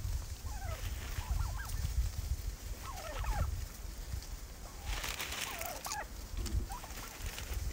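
A flock of turkeys calling: short, bending calls in a few clusters, about a second in, around three seconds and around six seconds. A brief rustle of dry leaves about five seconds in.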